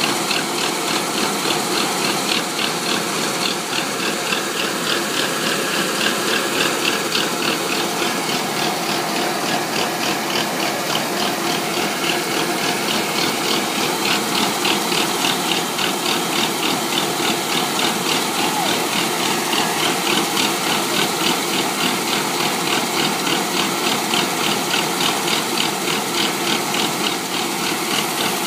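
Rice combine harvester running steadily, its engine and working mechanism giving a fast, even rhythmic clatter.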